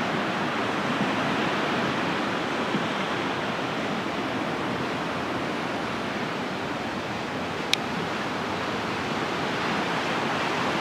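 Atlantic surf washing onto the beach: a steady rush of noise, with one sharp click about three-quarters of the way through.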